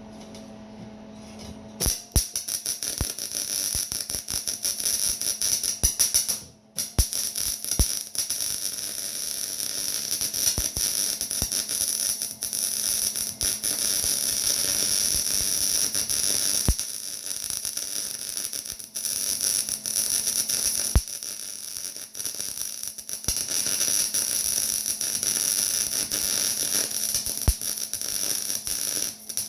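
MIG welder arc crackling and sizzling as it lays a bead on 5 mm steel plate, starting about two seconds in; the arc stops briefly near six and a half seconds, then strikes again and crackles on.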